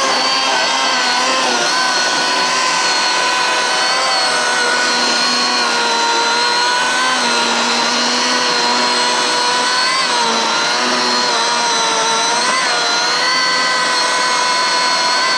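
Milwaukee M18 Fuel cordless electric chainsaw cutting through a dead fallen tree trunk: a steady, loud motor-and-chain whine that dips briefly in pitch a few times in the second half as the chain bogs under load.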